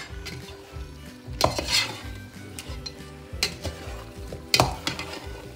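Metal spoon stirring chicken and spices in a pot of hot oil, scraping against the pot, over sizzling. The louder scrapes and clinks come at about a second and a half in, at three and a half seconds, and again near the end.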